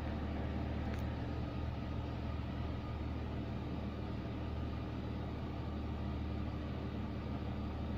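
MG ZT-T V6 190's 2.5-litre KV6 V6 engine idling steadily at about 900 rpm, heard from inside the cabin.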